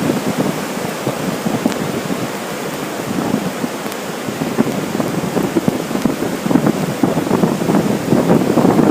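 Blizzard wind gusting over the microphone: a loud, continuous noise made of irregular buffeting surges, growing stronger near the end.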